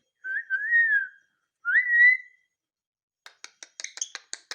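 Ring-necked parrot whistling two short warbling notes, the second sliding up and louder, followed about three seconds in by a quick run of clicks.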